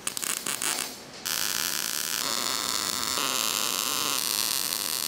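MIG welding arc crackling on the steel ammunition rack. A few short crackling starts in the first second are followed by a steady crackle from about a second in.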